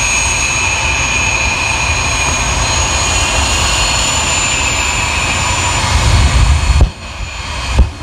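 Jet engine of a jet-powered show vehicle running at full power, with a steady roar and a high turbine whistle. The low roar swells about six seconds in, then cuts off sharply near seven seconds, followed by a sharp pop near the end.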